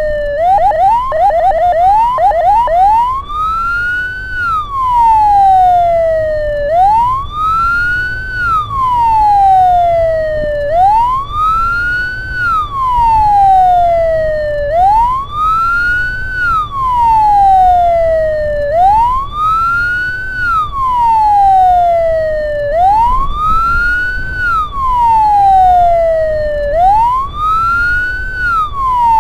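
Ambulance siren: a brief run of fast yelping near the start, then a slow wail that rises and falls about every four seconds. A low vehicle rumble runs underneath.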